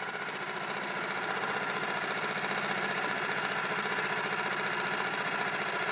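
Outboard motor of a small inflatable RIB running steadily at low speed, with a fine, even beat.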